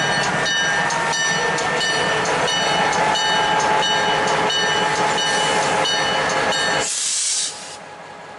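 Passenger excursion train rolling on the rails, its wheels clicking over rail joints about twice a second with steady high tones over them. About seven seconds in comes a short burst of hiss, and then the sound drops abruptly to something much quieter.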